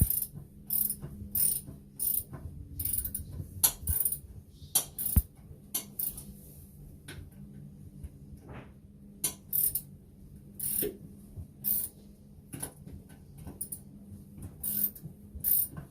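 Ratchet socket wrench clicking in short irregular strokes as it is worked on the nut of a toilet seat's mounting bolt.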